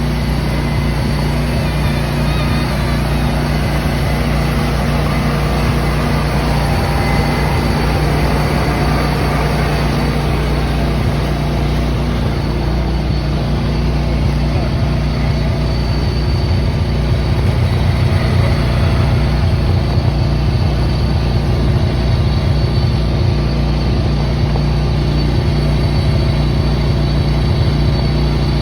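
Heavy diesel engine of wheat-harvesting machinery running steadily at a constant pitch, slightly louder about two-thirds of the way through.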